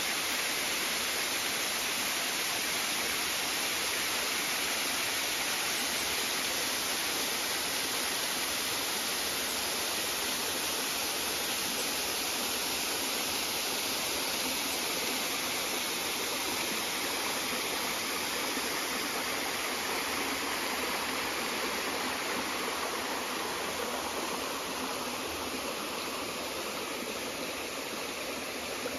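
Small waterfall spilling in thin strands over a rock ledge into a shallow rocky creek: a steady rush of falling and running water, easing slightly near the end.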